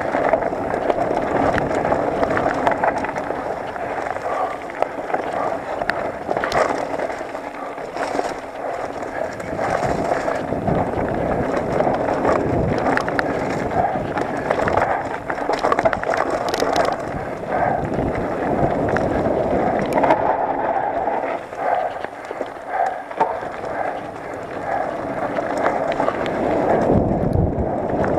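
Mountain bike descending a rough dirt trail: the steady rumble of tyres over dirt and stones, with constant rattling and knocks from the bike and wind on the microphone.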